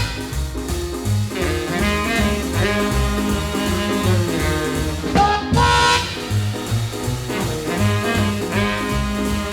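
Intro music: an upbeat swing-jazz track with brass and a walking bass beat.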